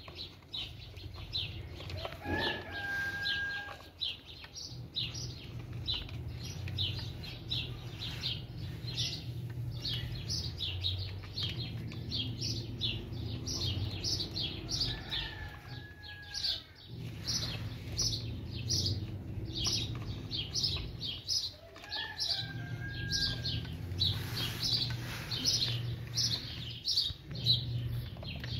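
Small birds chirping busily and continuously, several short high chirps a second, over a low steady hum that drops out now and then. Three times a brief, held higher call stands out from the chirping.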